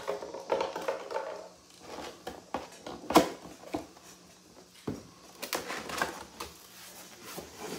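Cardboard box and its packaging being handled and opened: irregular rustles, scrapes and taps of cardboard, with a sharper knock about three seconds in.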